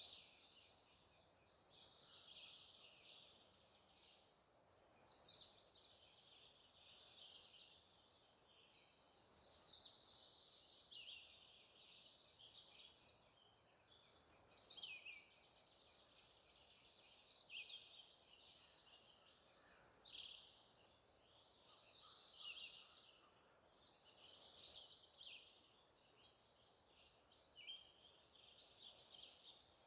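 Songbirds singing: short, high, trilled song phrases, one every two seconds or so, some overlapping, over faint outdoor background.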